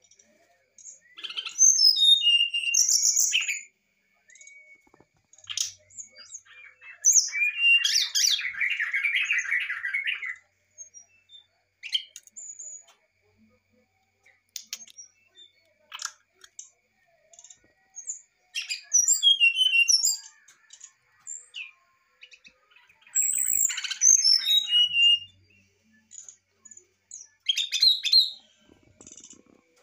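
Brown-chested jungle flycatcher (sikatan rimba dada coklat) singing a varied fluting song: about five separate phrases of quick, falling clear whistles with pauses between. The phrase about eight seconds in is lower and denser.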